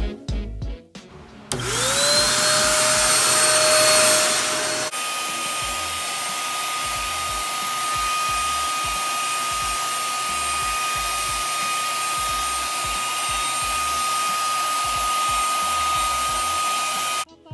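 Turbo Vac Plus vacuum cleaner switched on about a second and a half in, its whine rising as the motor spins up and then levelling off. About five seconds in the sound changes abruptly to steady running with a thin high whine as the floor nozzle sweeps a carpet. It cuts off just before the end.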